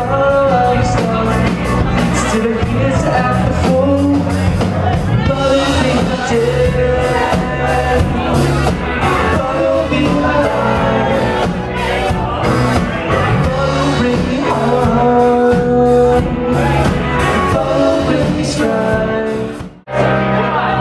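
Live rock band playing, with a lead singer, electric guitar and drums. The sound drops out for a moment near the end.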